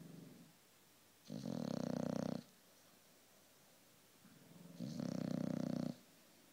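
Dog snoring while asleep on its back: two loud, rasping snores about a second long, roughly three and a half seconds apart, with a softer breath leading into the second.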